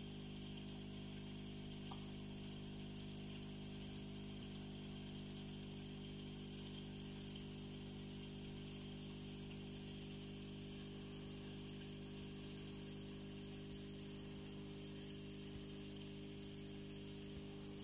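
Aquarium filter pump running steadily: a low electric hum with a constant wash of moving water over it.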